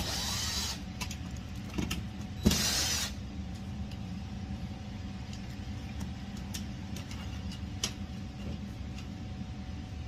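Plastic thermostat wallplate being handled and turned: two short scraping rustles, the second starting with a sharp click, then a few light clicks, over a steady low hum.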